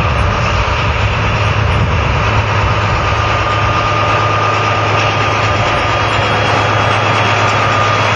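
Diesel locomotive engine running steadily, with a low hum and a thin high whine over it.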